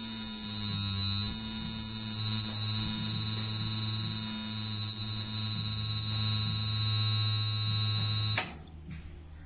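Piezo buzzer on a water tank overflow alarm board sounding one continuous high-pitched tone: the tank-full alarm, set off by the sensing wires touching water. It cuts off suddenly after about eight seconds.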